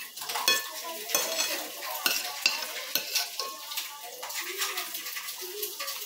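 Metal spoon scraping and clinking against a glass bowl while scooping milk-soaked cuscuz, with chewing between scoops.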